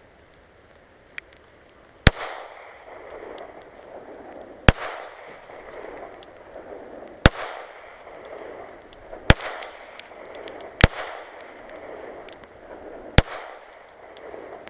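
Glock semi-automatic pistol fired six times in slow, deliberate succession, about two seconds apart, each shot sharp and followed by a short fading echo. A faint click comes just before the first shot.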